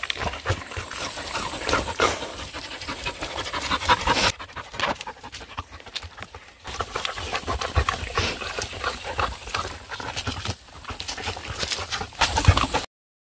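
Dogs (a Pungsan dog and a Pungsan–Jindo mix) tearing off and chewing grass close to the microphone: irregular crunching and ripping, mixed with panting. The sound cuts off suddenly near the end.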